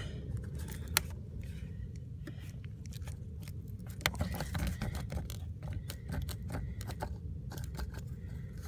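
Handling noises inside the humidifier housing: a sharp click about a second in, then a run of small clicks and scrapes from about four seconds on, over a steady low rumble.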